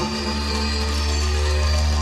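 Background music: a steady deep drone with held tones above it, didgeridoo-like.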